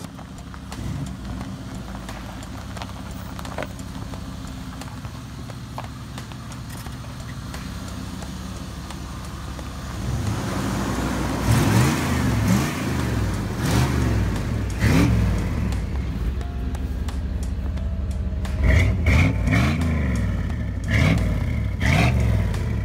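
Chevy K1500 pickup's engine idling, then revved in several quick blips from about ten seconds in, each rising and falling in pitch.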